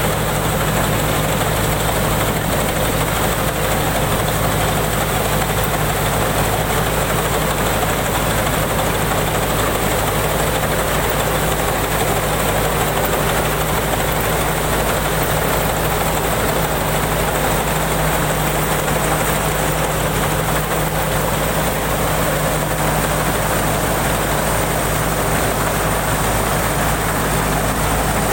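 Combine harvester's engine running steadily at a constant speed, with a mechanical hum that does not change.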